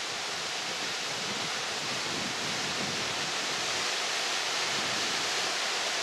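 Calf Creek Falls, a tall waterfall spilling down a sandstone cliff, rushing steadily with an even, bright hiss of falling water.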